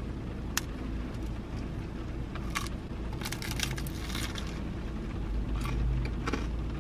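Crunching and chewing of a crisp, parmesan-crusted Pizza Hut melt, with a few sharp crunches spread through and a cluster of them in the middle, over a low steady rumble.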